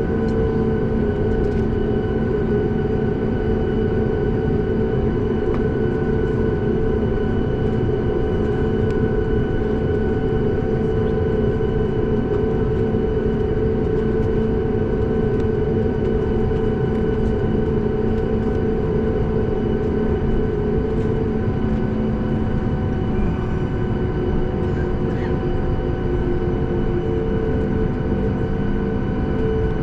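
Steady cabin noise inside a Boeing 737 MAX 8 airliner: the rumble of its CFM LEAP-1B jet engines and airflow, with a steady hum of several tones whose pitch shifts slightly about twenty seconds in.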